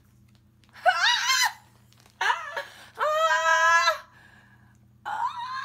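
A young woman's high-pitched excited squeals: a short rising squeal about a second in, a brief one after it, then a longer held squeal, with another beginning near the end.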